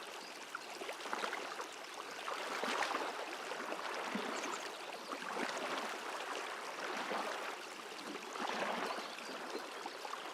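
A stream babbling and gurgling steadily, its level swelling and easing a little.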